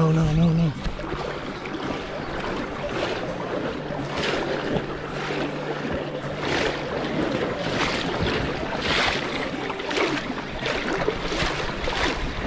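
Water splashing and swishing around the legs of people wading quickly through a river current, in a surge about once a stride.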